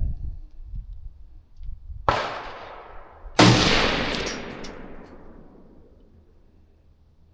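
Two gunshots about a second and a half apart, the second louder, each rolling off in a long echo that fades over several seconds.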